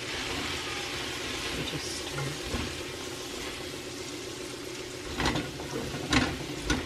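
Asparagus sizzling in a hot frying pan, with three knocks of silicone-tipped tongs against the pan near the end as the spears are turned.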